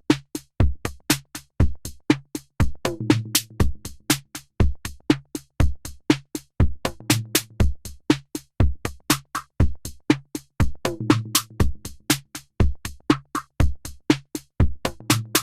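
Electronic music: a dry drum-machine beat of short hits, about four a second, over a short repeating low bass figure.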